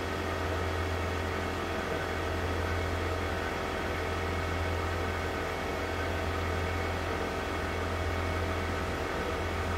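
Makeblock Laserbox laser cutter running a job: a steady mechanical hum as its head travels, with no sound of cutting. The laser is not firing.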